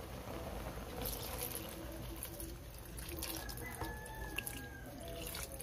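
Water poured from a cup into a wok of fish in broth, splashing and trickling into the liquid, starting about a second in.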